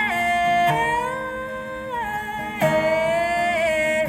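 Live solo acoustic performance: a female voice holds a long, drawn-out sung word over acoustic guitar, sliding between a few sustained notes with a slight waver near the end.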